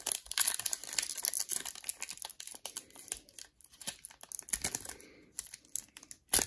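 Foil wrapper of a Panini Mosaic trading-card cello pack crinkling and crackling in irregular bursts as fingers pick at its stubborn sealed end, trying to tear it open, with a sharp crackle near the end.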